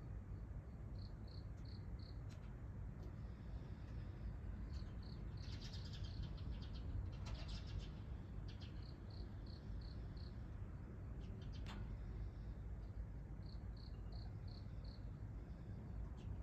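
A cricket chirping outdoors in short runs of four or five evenly spaced high notes, repeated every few seconds, with a few quick bird chirps in the middle and a single sharp tick later on. A low steady hum lies underneath.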